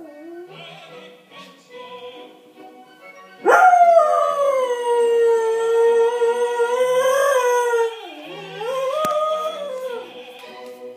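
Dalmatian howling along to music: one long wavering howl that starts suddenly about three and a half seconds in, then a shorter howl that rises and falls, with the music playing underneath.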